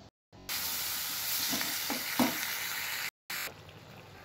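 Vegetables and fish in a sauce sizzling in a frying pan while a metal spatula stirs, with a few short knocks of the spatula against the pan. The loud sizzle starts about half a second in and cuts off abruptly about three seconds in, leaving a quieter stretch.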